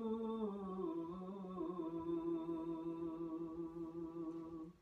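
A man singing unaccompanied: one long drawn-out note that slides down in pitch during the first two seconds, then holds steady and stops abruptly near the end.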